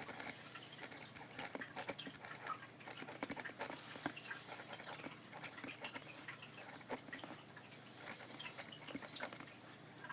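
Pen working on paper: a quiet, irregular run of small scratches and ticks.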